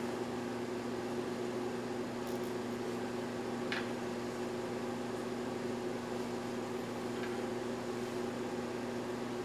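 Steady low electrical hum and room noise, with one faint click about four seconds in.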